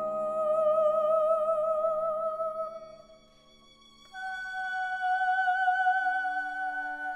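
Contemporary chamber music for soprano and string quartet: a long high note with vibrato over quieter low held tones fades out about three seconds in. After a short quiet gap a second, higher vibrato note enters and is held, with a low held tone joining near the end.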